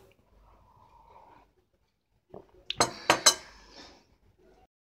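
A metal fork clinking against a ceramic plate: a short run of sharp clinks in the middle, the two loudest about half a second apart.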